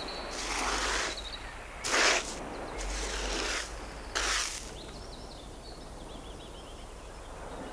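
Sand being scraped and shovelled by hand in four rough rushes, the loudest about two seconds in, as a jar is dug into sand. After that, faint high chirping over a quiet outdoor background.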